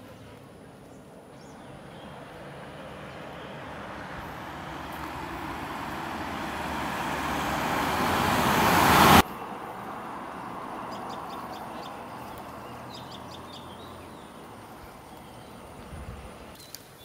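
A motor vehicle, an SUV, coming up the road: its engine and tyre noise grow steadily louder for several seconds, then cut off suddenly about nine seconds in.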